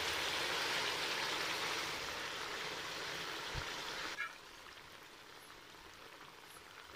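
Chicken and whole tomatoes sizzling in ghee in an aluminium pot, a steady hiss that drops away sharply about four seconds in.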